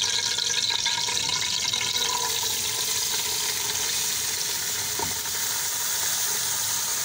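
Hot oil with cumin seeds sizzling steadily in a steel pot as chopped cluster beans are tipped in.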